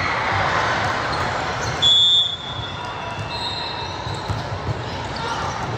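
Indoor gym hubbub with repeated dull thumps of a ball and feet on the court, and a short, sharp referee's whistle about two seconds in.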